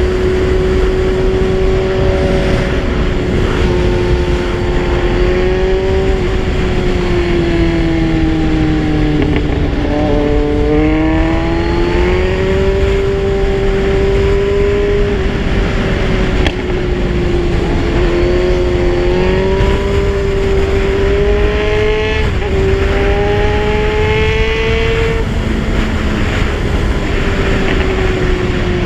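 Kawasaki Z1000 inline-four engine running at steady riding revs, its pitch sinking and rising gently with the throttle, over a steady rush of noise.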